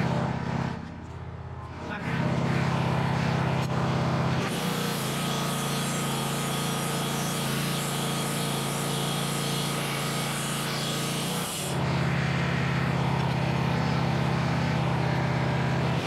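Engine of a Wood-Mizer LT15 portable bandsaw mill running steadily. From about four seconds in until nearly twelve seconds in, the band blade cuts through a maple log and adds a loud rushing noise over the engine. The engine dips briefly between one and two seconds in.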